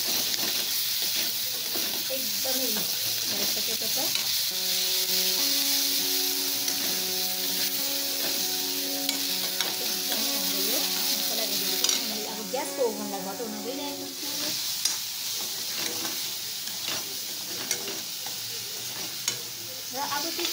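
Sliced peppers and onion sizzling in hot oil in a metal wok while a metal spoon stirs and scrapes them, with many small clicks of the spoon against the pan. The sizzle gets quieter about twelve seconds in.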